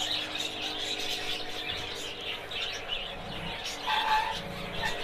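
Caged pet birds chirping and chattering continuously in many short, high notes, with one clearer call about four seconds in. A faint steady hum runs beneath.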